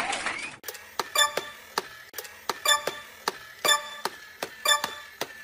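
A steady run of short ticks, each with the same brief ringing tone, about three a second, starting shortly after a cut.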